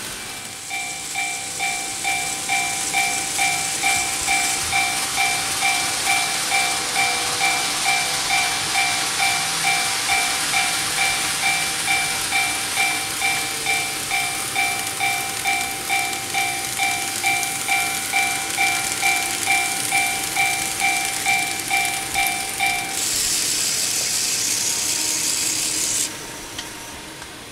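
Japanese-style railway level-crossing warning bell ringing about twice a second, an electronic two-tone ding, over a steady hiss. The bell stops about 23 seconds in, and a brighter hissing noise follows for about three seconds before dropping away sharply.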